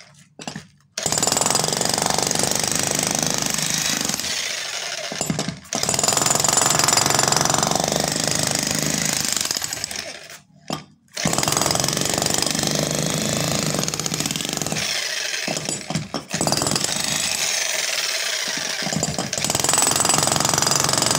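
Corded electric demolition hammer breaking up a concrete slab, its chisel bit pounding into the concrete in a fast, continuous rattle. It stops briefly a few times when the trigger is let go: just after the start, near the middle, and again later on.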